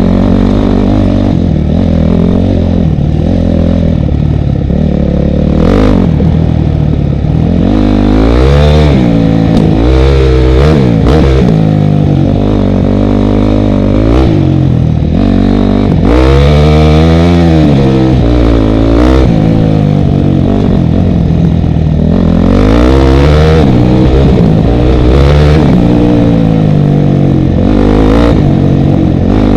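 Motorcycle engine running hard under a rider off-road, its pitch rising and falling again and again as the throttle is opened and closed, with a few sharp knocks from the rough track.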